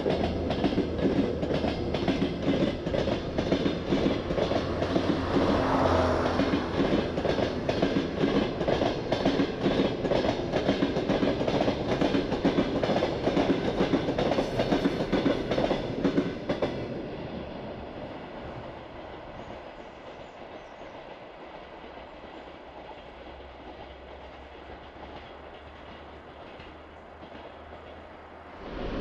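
Russian Railways passenger coaches rolling past, their wheels knocking rhythmically over the rail joints. The noise drops sharply about 16 seconds in as the last coach goes by, leaving the quieter sound of the train running away into the distance.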